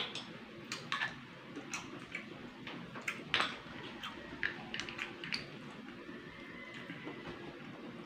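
Close-up eating sounds: short, irregular clicks, smacks and slurps as cooked freshwater snails in coconut milk are sucked and picked from their shells and chewed. The loudest click comes right at the start.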